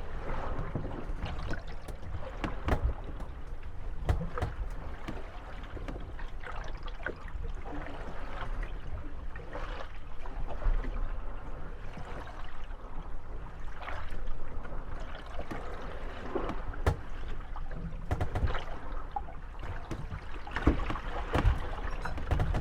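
Moored wooden gondolas rocking on the waves, knocking irregularly against each other and creaking, over lapping water and a steady low rumble.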